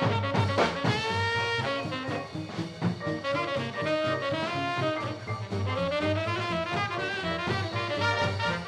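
Ragtime band music: brass and reeds playing a melody over a steady bass beat.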